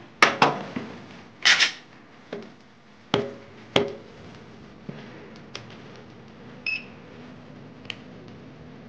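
Sharp clicks and small knocks from handling an unloaded Glock 43X pistol with a trigger pull gauge between trigger-weight pulls, thickest in the first four seconds, with a short rasp about one and a half seconds in and a brief high blip near the middle.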